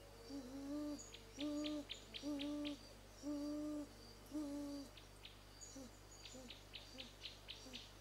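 A series of low hooting calls, each held about half a second and about one a second, then softer, shorter hoots coming a little quicker over the last three seconds. A rapid high ticking chirp of insects or small birds runs through it.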